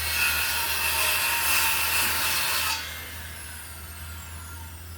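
Electric hand planer cutting wood for nearly three seconds: a loud, steady shaving noise with a whine. The cut then ends and only a much quieter running sound and a low hum remain.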